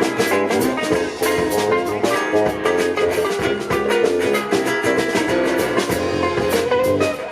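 Live band playing an instrumental passage: drum kit keeping a steady beat under a bright, ringing melodic lead and guitar.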